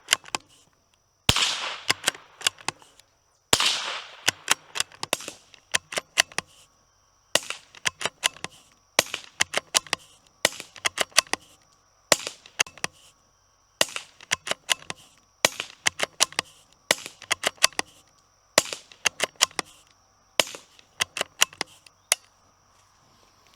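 About a dozen suppressed shots from a bolt-action .22 LR rifle fitted with a Hush Point .22 silencer, firing standard-velocity rounds. They come one every one and a half to two seconds, each a short pop followed by a few sharp clicks. The shots are really quiet, the muzzle blast contained by the silencer.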